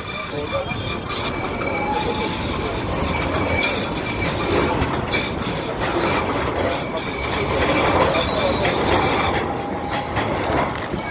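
City tram running on street rails with its wheels squealing: thin, steady, high-pitched tones held over the rumble of the car.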